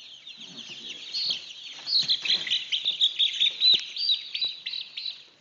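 Three-week-old chicks peeping rapidly: a dense run of short, high-pitched cheeps that grows louder about two seconds in.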